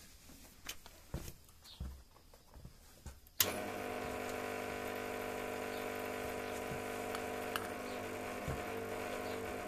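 Awelco Mig One flux-core MIG welder switched on with a click about three and a half seconds in, its transformer then humming steadily, ready for a test weld. A few faint knocks from footsteps and handling come before it.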